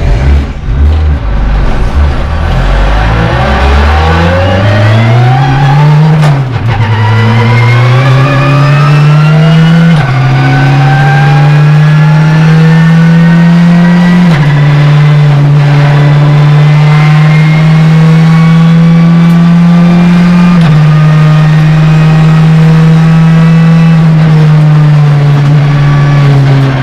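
Touring race car's engine, loud from inside the cockpit, pulling away at low revs and then accelerating up through the gears. There are four upshifts, each a sudden drop in pitch, with the engine note climbing slowly in every gear.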